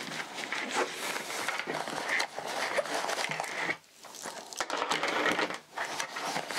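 Fabric pocket of a padded gear bag rustling and crinkling as cables and charger adapters are rummaged through and pulled out by hand. The handling comes in irregular spells, with brief pauses about four and six seconds in.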